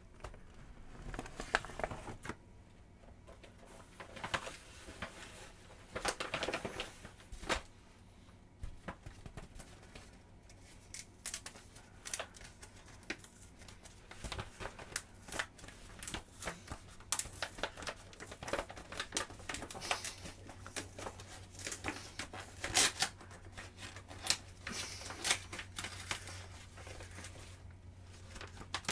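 Paper and plastic packaging being torn open and crinkled by hand, in irregular rustles and rips as a taped postal parcel is unwrapped.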